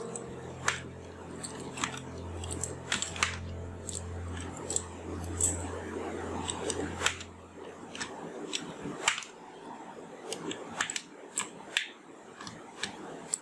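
Plastic keycaps being pulled off a mechanical keyboard one after another: irregular sharp clicks and snaps. A low steady hum runs under the first half and stops about seven seconds in.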